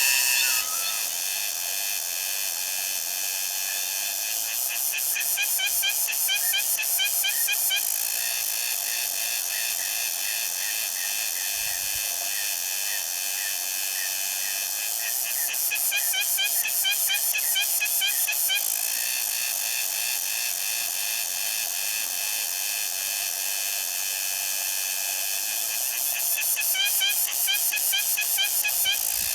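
Insects singing: a steady high buzz, with a louder pulsing phrase of rapid ticks and chirps that swells about every ten seconds, three times.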